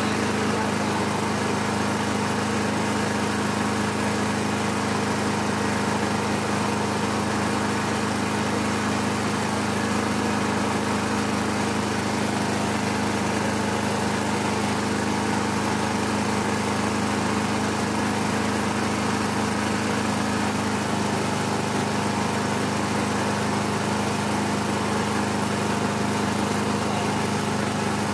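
Small stationary engine running at a steady speed, driving a meat-and-chili grinder that is grinding chili paste.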